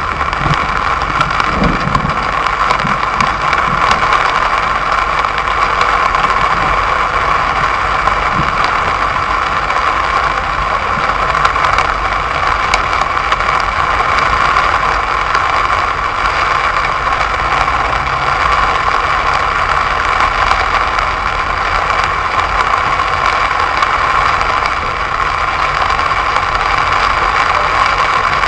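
Steady noise inside a car in heavy rain: the engine running under the even hiss of rain on the car's body and windscreen.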